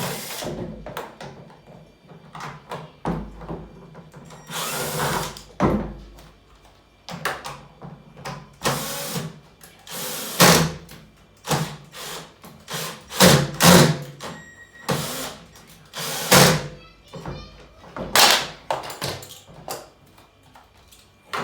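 Cordless drill-driver run in repeated short bursts, working the screws that hold together a washing machine's split plastic tub, with knocks and clatter of the screws and tub parts between runs.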